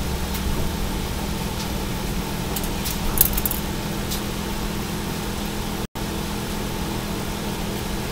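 A steady low mechanical hum, with a few faint clicks about three seconds in; the sound cuts out completely for an instant near six seconds.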